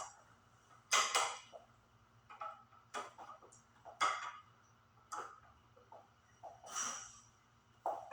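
Metal tool clinking against bicycle parts while a wrench works on a stuck fitting: about eight sharp clicks and taps, irregularly spaced.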